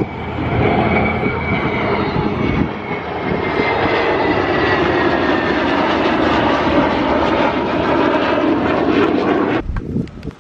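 Airplane engine running loud and steady overhead, its pitch slowly falling as it passes; it cuts off suddenly near the end.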